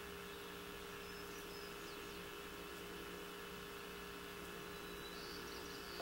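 Steady electrical hum and hiss, with two faint, brief high chirps, one about a second and a half in and one near the end.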